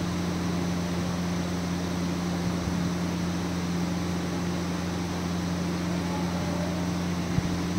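A steady machine hum with an even hiss, unbroken throughout: an electric motor running, moving air.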